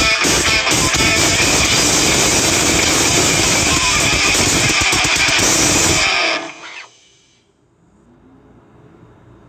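A Nokia E72 ringtone, a guitar-driven rock track, playing on a Samsung Galaxy A51 phone. It dies away about six and a half seconds in, leaving only a faint low hum.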